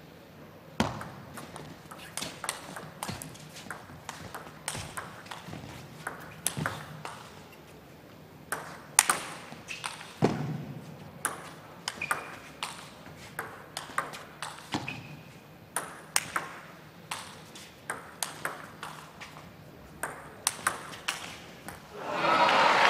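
Celluloid-plastic table tennis ball clicking sharply off rackets and the table, one click about every half-second to second, in a rally with the ball bounced before the serve. Applause breaks out about a second before the end.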